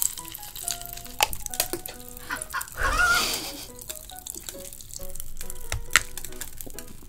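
Light plinking background music. About three seconds in comes a cartoon chicken squawk sound effect, and near six seconds a sharp crack as a piece of hard chocolate is bitten.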